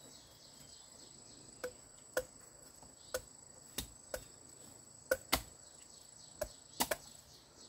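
A blade chopping into bamboo shoots: about ten sharp chops at an uneven pace, some in quick pairs. A steady high-pitched insect drone runs underneath.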